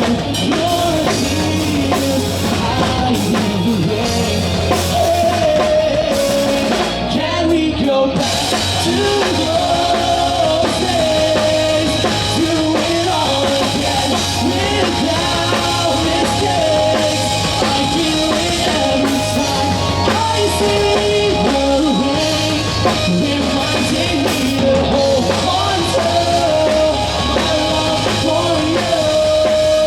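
Rock band playing live, a singer's voice over drum kit and instruments.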